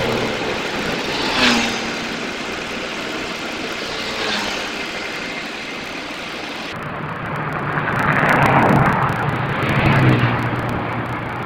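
Road vehicles running, among them large buses: a steady engine hum, with two louder swells that rise and fall near the end.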